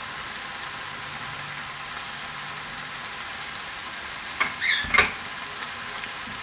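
Tomato-based curry paste sizzling steadily as it fries in a non-stick pan, with a few sharp clinks a little past the middle.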